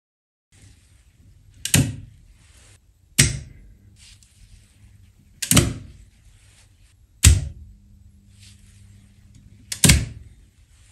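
Modular power contactors clacking in and out as a rotary source selector switch is turned from position to position: five sharp clacks about two seconds apart, some led by a lighter click of the selector. A faint low hum, typical of an energised contactor coil, holds between some of the clacks.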